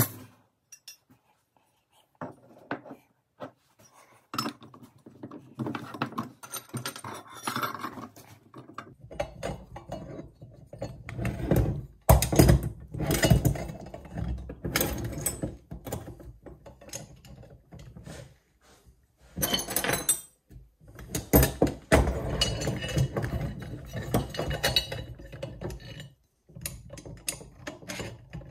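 Metal chainsaw-mill parts and loose bolts clinking, rattling and knocking as they are handled and fitted together by hand on a wooden workbench, in irregular bursts with a few sharp knocks around the middle.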